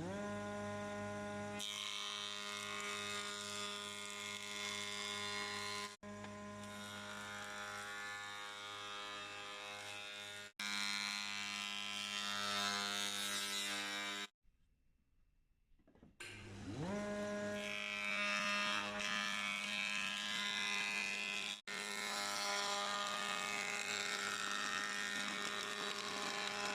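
2200 W electric combination jointer-planer's motor and cutterhead spinning up with a rising whine, then running steadily with a hiss as wood is planed. It stops abruptly partway through, and after a short quiet spins up again with the same rising whine and planes another pass.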